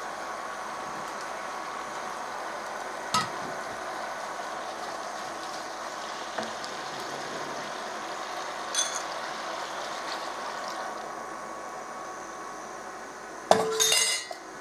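Spinach and pan juices sizzling steadily in a pan, with a couple of light utensil clicks. Near the end comes a louder short run of clinks as a glass jar is picked up off the worktop.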